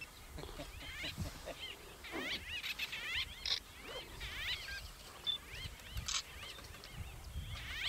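Many short, high chirping animal calls in quick clusters, with a couple of sharp clicks.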